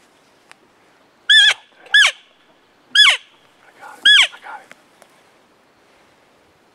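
Four short, loud elk mews about a second apart, each a high squeal that falls steeply in pitch.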